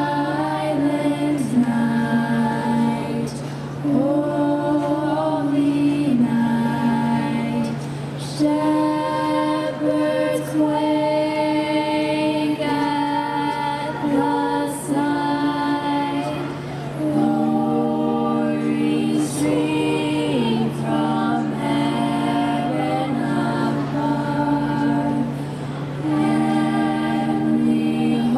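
Youth choir singing in harmony, holding sustained chords that change every second or two. A steady low hum runs underneath.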